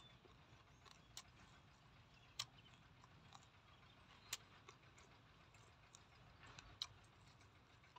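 Quiet eating sounds over faint outdoor background: a few short, sharp clicks, the loudest about two and a half, four and a half and seven seconds in, as roasted rat and salad are handled and eaten.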